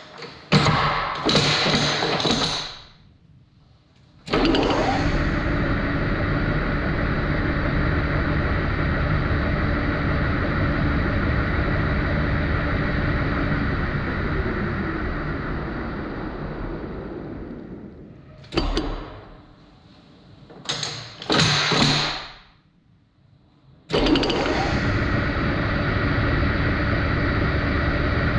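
Metal lathe running: the motor and headstock gears run with a steady hum, then slow and stop. A few clunks and knocks follow as the speed is changed, and near the end the lathe starts again abruptly at a higher speed.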